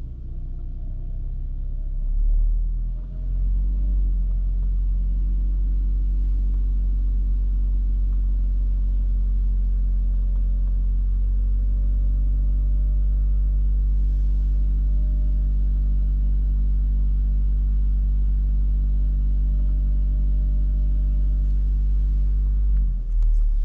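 Inside a moving VW Golf Mk5: a steady low rumble of engine and road noise, with the engine note shifting slightly about halfway through.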